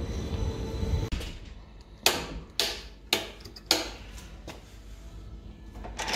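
An ARB Air Locker cutaway differential display being worked by hand, its gears and locker giving four sharp metallic clacks about half a second apart. A low rumble runs for about the first second.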